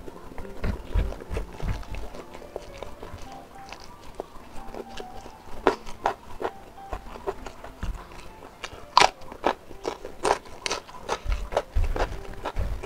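Close-up chewing and mouth sounds of a person eating smoked beef with rice by hand: wet smacks and lip clicks at an irregular pace, with fingers picking food off a banana leaf.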